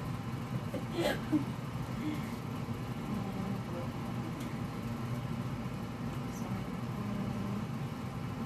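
A steady low hum, like a running fan or appliance, with a brief voice-like sound about a second in.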